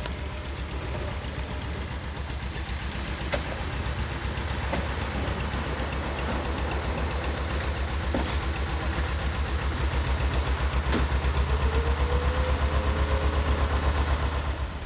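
Chertsey's Petter PD2 two-cylinder diesel engine running with a steady low knocking beat, growing louder as the narrowboat draws close.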